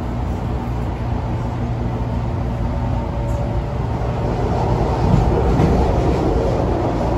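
MAX light rail car running along the track, heard from inside the car: a steady rumble of wheels and motors that grows a little louder about five seconds in.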